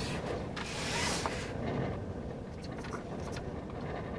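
Blizzard wind buffeting the van, heard from inside the cabin as a steady low rumble, with a stronger hissing gust about a second in.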